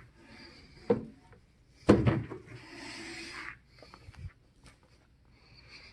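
Two sharp knocks, about a second apart, followed by a rubbing scrape lasting about a second and a half, then a few faint clicks: items being handled and shifted.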